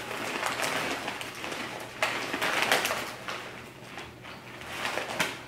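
Plastic potato-chip bag crinkling as a hand rummages in it, mixed with the crunch of chips being chewed close by. The crackling is densest about two seconds in and thins out near the end.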